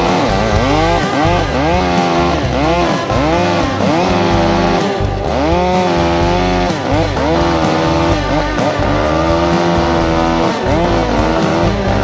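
Background music: an electric guitar-like lead with bending notes over a steady, stepping bass line.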